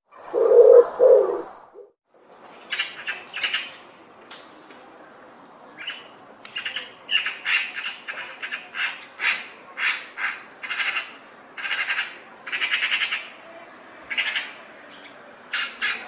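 A bird giving harsh squawking calls over and over, in short clusters, starting a couple of seconds in. Before that, a steady high insect trill and a lower call are heard briefly.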